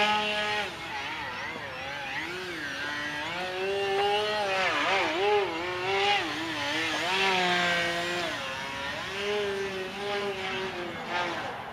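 E-flite QQ Edge radio-controlled aerobatic plane's motor and propeller whining in flight, the pitch rising and falling over and over with throttle changes and passes.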